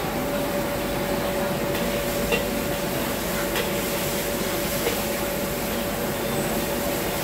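Noodles being stir-fried in a wok over a gas wok burner: a steady rush of flame and sizzle under a constant hum, with a few light clinks of the metal spatula against the wok.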